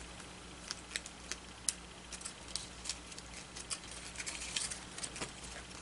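Thick paper being folded and handled by fingers: faint, irregular crinkles and ticks as scored tabs are creased and tucked in.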